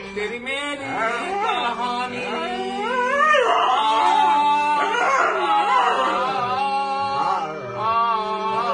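A dog howling and yipping along in long rising and falling glides over a harmonium holding steady drone notes, with a man singing to the harmonium.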